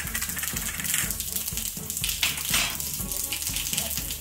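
Cumin seeds sizzling in hot oil in an iron kadai, with background music and a steady low beat underneath.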